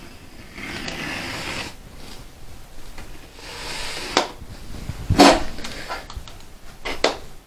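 Steel scriber scratching around the edge of a sheet-metal pattern on tin plate, in two short stretches, with a few sharp knocks. The loudest knock comes about five seconds in.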